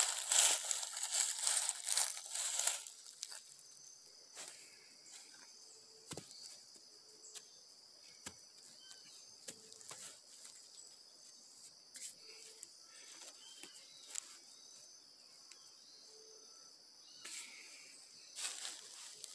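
Dry leaf litter rustling and crunching under a hand for the first few seconds, then a steady high insect drone with a few faint chirps and scattered light clicks; the leaf rustling comes back near the end.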